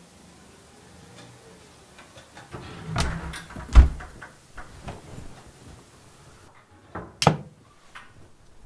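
Knocks and thumps of a built-in cupboard being opened and rummaged in: a cluster of knocks about three seconds in with one heavy thump, then another sharp knock a little after seven seconds.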